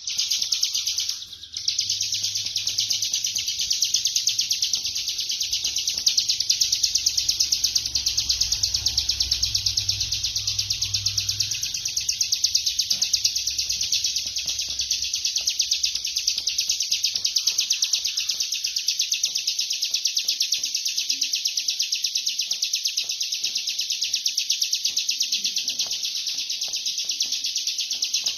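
Bar-winged prinia singing a very rapid, unbroken drilling trill (the 'ngebren' song), with a brief break about a second and a half in. A faint low rumble lies under it for the first dozen seconds.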